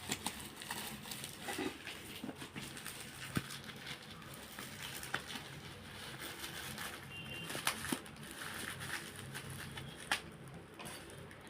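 Bubble wrap and plastic packaging rustling and crinkling as they are unwrapped by hand, with scattered sharp clicks and taps.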